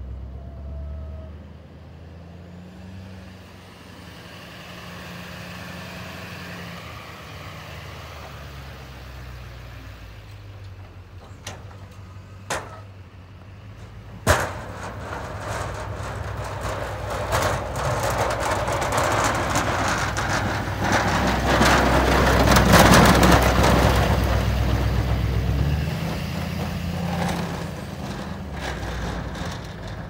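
Snowplow truck's engine running steadily, then the truck working close by with its blade scraping and pushing snow: a loud rush that builds from about halfway, is loudest about three-quarters of the way through, then eases. A few sharp knocks come just before the rush builds.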